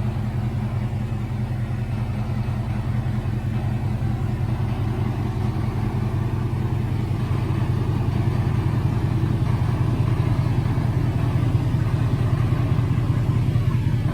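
2018 Ford F-150 pickup driving, a steady low engine and road hum that grows a little louder about halfway through.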